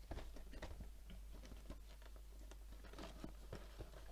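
Faint, irregular small clicks and crackles of fingers handling and prying at a LEGO set's cardboard box as it starts to be opened by hand.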